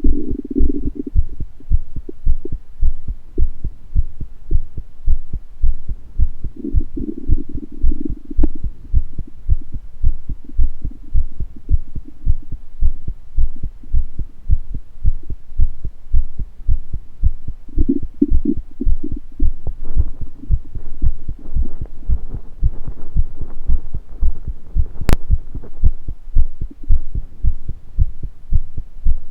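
Human heartbeat, a steady low thudding at about one beat a second, with short stomach gurgles over it near the start, around seven seconds in and around eighteen seconds in. A single sharp click about 25 seconds in.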